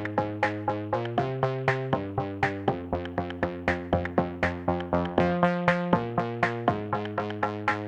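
Light electronic background music: a steady run of short plucked notes, about four a second, over held bass notes.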